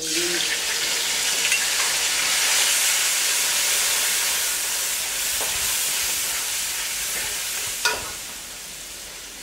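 Hot oil sizzling loudly in an iron karahi as food goes in. The sizzle starts suddenly and slowly eases while a metal spoon stirs. There is one sharp clank of the spoon against the pot about eight seconds in.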